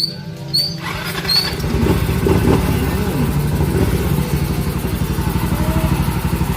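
Yamaha Mio i125 scooter's single-cylinder 125 cc four-stroke engine, freshly overhauled, starting about a second in. It gives a short rev, then settles into a steady idle with even firing pulses.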